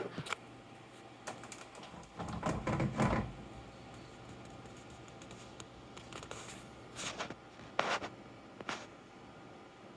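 Scattered light clicks and knocks, with a short rustling, knocking bout about two to three seconds in and three more sharp clicks near the end. This is a hand handling a quartz schoolhouse wall clock and giving its pendulum a push; the pendulum no longer keeps swinging on its own.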